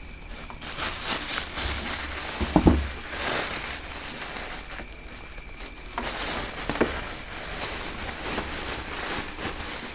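Rustling and crinkling of a black cloth helmet bag and the clear plastic wrap inside it being handled and pulled open by hand. The crackles are irregular and come thicker in spells.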